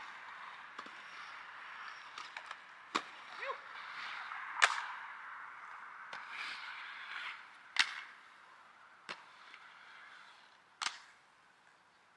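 Inline skate wheels rolling back and forth on a concrete mini ramp, a hiss that swells and fades, cut by about five sharp clacks as the skates hit the coping. The loudest clack comes about a third of the way in.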